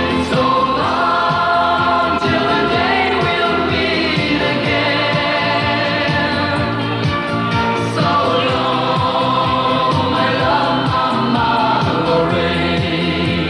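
German schlager song: a male singer with backing vocals over a band with a steady beat.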